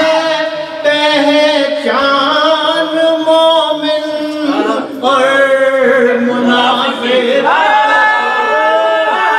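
A man singing devotional Urdu verse in praise of Ali, unaccompanied, drawing the melody out into long held notes that slide between pitches.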